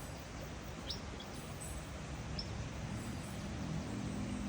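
Outdoor jungle ambience, a steady hiss of background noise with a few brief high bird chirps. A low hum rises near the end.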